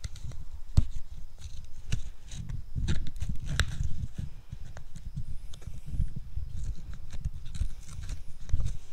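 Handling noise from a phone microphone rubbing and bumping against clothing as the phone is held close to the body: irregular low thumps with scattered sharp clicks.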